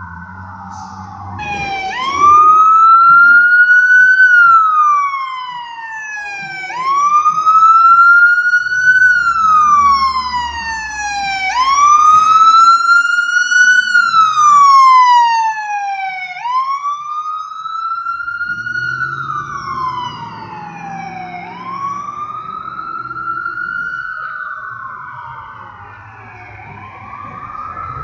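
Fire engine's siren sounding a slow wail, rising and falling in pitch about every five seconds, with a low engine rumble underneath. It is loud through the first half, then fades as it moves away.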